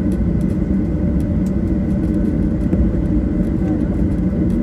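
Steady drone of a jet airliner's engines, heard from inside the passenger cabin: a dense low rumble with a few steady hum tones and a faint high whine.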